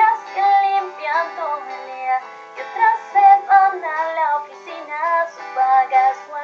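A female voice singing a slow song with acoustic guitar accompaniment.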